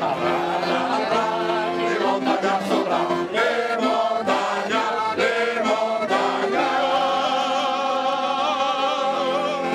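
Several men singing a folk song together in chorus, led by a strong male voice, ending on one long held note with vibrato in the last three seconds.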